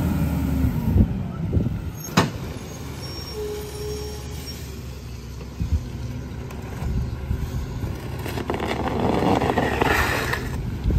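Rear-loader garbage truck's diesel engine idling steadily, with one sharp knock about two seconds in. Near the end, paper yard-waste bags rustle as they are picked up.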